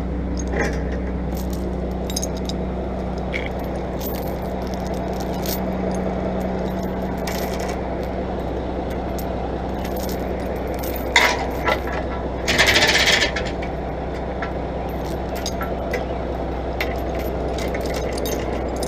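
Diesel engine running steadily, with scattered metallic clinks and a louder burst of chain clanking and scraping about eleven seconds in and again a second or two later.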